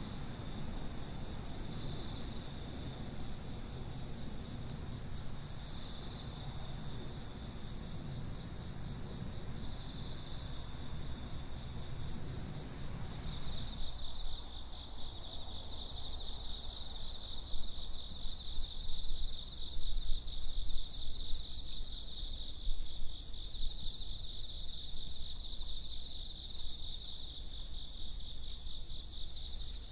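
Bell crickets (suzumushi) singing in a steady autumn-night chorus of several high, unbroken trills, over a low background rumble that drops away about halfway through.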